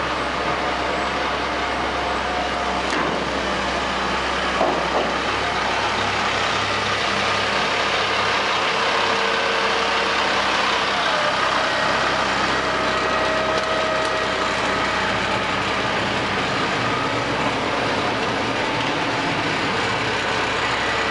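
Ford L8000 truck's Cummins L10 turbo diesel running steadily, under a steady hiss. A faint whine rises in pitch about halfway through.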